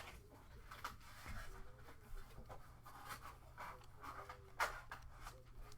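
Trading cards being handled and flipped through: soft sliding, rubbing and light clicks of cardstock, with a sharper click about four and a half seconds in.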